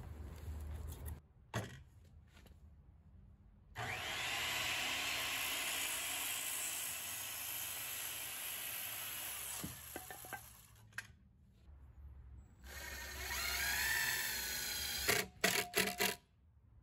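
Corded circular saw starting with a rising whine and cutting through a board for about six seconds. Later a cordless drill-driver spins up and down as it drives screws into wood, with a few sharp knocks near the end.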